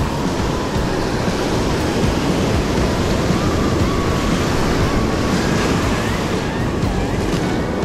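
Ocean surf washing onto the beach, a steady rush of breaking waves, with wind rumbling on the microphone.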